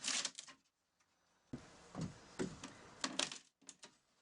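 An ordinary crowbar levering up floorboards: a few faint, irregular knocks and clicks, a cluster at the start and more from about a second and a half in.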